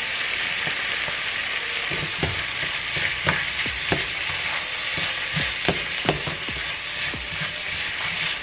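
Sliced bell peppers and onions sizzling in a hot frying pan, a steady frying hiss. From about two seconds in, a utensil clacks against the pan several times as the vegetables are stirred.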